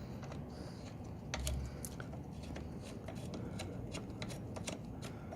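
Irregular small metallic clicks and taps of hand-threading the rear brake caliper's retaining bolts and handling the tools, with one dull thump about a second and a half in.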